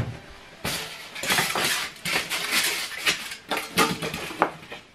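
Polystyrene foam packing pieces being pulled out of a cardboard flat-pack box and set down: a run of irregular scraping, rubbing and knocking.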